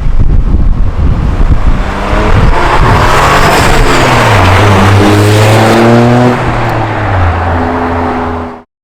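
Toyota GR Corolla's turbocharged G16E-GTS three-cylinder engine, breathing through an Eventuri carbon fibre intake, accelerating hard: a rough low rumble, then the engine note climbing steadily in pitch, easing to a lower steady note, and cutting off suddenly near the end.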